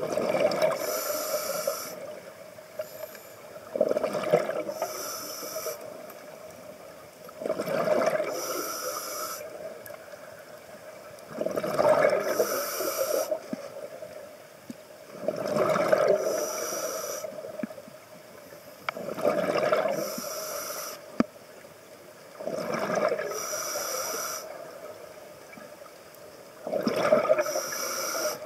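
Scuba diver breathing through a regulator underwater, a steady cycle of about one breath every four seconds. Each hissing inhalation through the demand valve is followed by a rush of exhaled bubbles.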